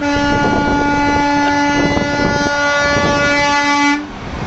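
Semi truck's air horn sounding one long, steady blast that cuts off suddenly about four seconds in, over the rumble of the passing trucks.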